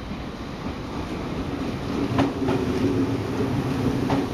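Nankai commuter electric train, unit 1051F coupled to 8315F, pulling into the station past the microphone. Its motors give a steady hum that grows louder, with a few sharp clicks of the wheels over rail joints about two seconds in and again near the end.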